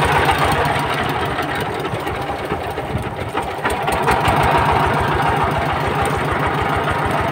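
An engine running steadily at a constant speed, with a regular low thudding of about eight beats a second.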